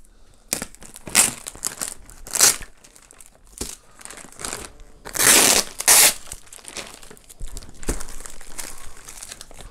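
Thin plastic mailer bag crinkling as it is handled and pulled open, in short separate bursts, the loudest about five seconds in.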